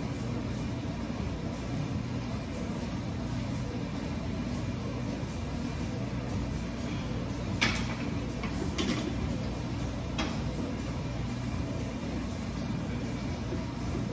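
Steady low rumble of gym room noise, with three sharp clicks or knocks about halfway through, roughly a second apart.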